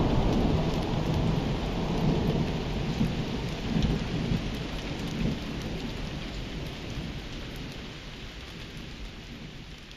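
A thunderstorm: heavy rain falls steadily while a long roll of thunder rumbles and slowly dies away.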